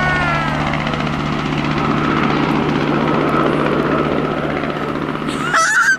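Sikorsky CH-148 Cyclone twin-turboshaft helicopter flying past, a steady low hum of engines and rotor with a thin high whine over it. A brief high-pitched call cuts in near the end.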